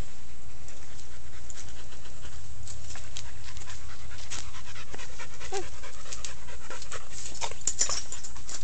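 A dog panting, with scattered short clicks and scuffs.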